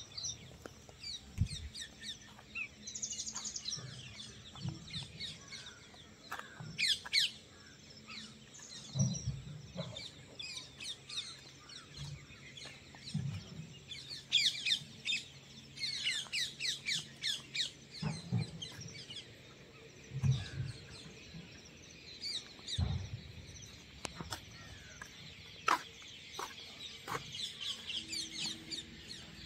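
Small birds chirping and twittering in quick, scattered calls, with occasional short low calls in between.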